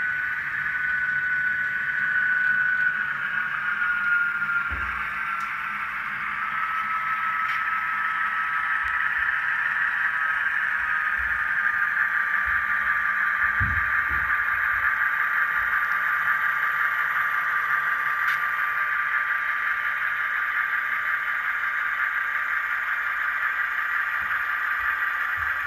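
Model CSX diesel locomotive's onboard sound system running its diesel engine sound through a small, tinny speaker: a steady rumble with a whine that slowly drops in pitch over the first dozen seconds and then holds steady. There are a couple of low thumps along the way, one about five seconds in and another around thirteen seconds.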